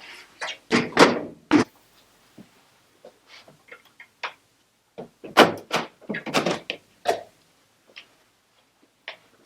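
Irregular knocks, clicks and clatter of washer-dryer panels and parts being handled and taken apart, with two loud clusters about a second in and around five to seven seconds in, and lighter clicks between.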